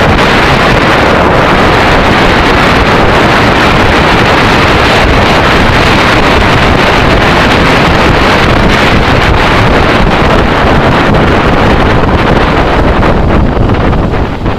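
Wind blasting across the microphone of a camera on a motorcycle at road speed: a loud, steady rush of air that covers the engine, easing a little near the end.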